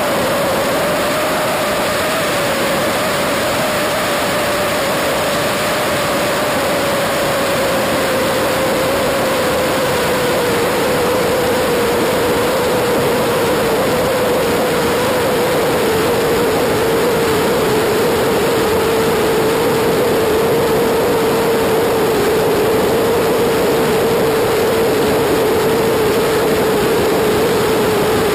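BMW F800GS's parallel-twin engine running at a steady cruise, its note easing slightly lower over the stretch, under constant loud wind rush on the bike-mounted camera's microphone.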